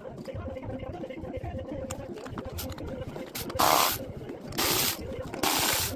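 Three short bursts of hissing spray, each under half a second, in the second half.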